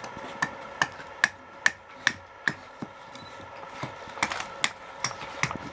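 Rapid chopping of a wooden spoon blank held against a log block with a small hand-held edged tool, about two and a half sharp strikes a second, roughing out the blank. The chopping stops for about a second in the middle, then resumes.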